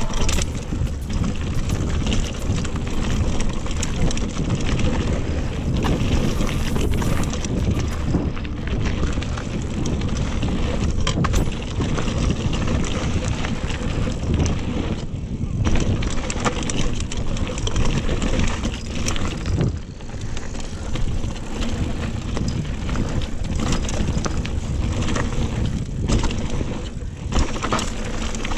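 Riding noise from a GT Aggressor Pro mountain bike on a dirt trail: tyres rolling over packed dirt and rocks, with frequent clicks and rattles from the bike over bumps, under steady wind noise on the microphone.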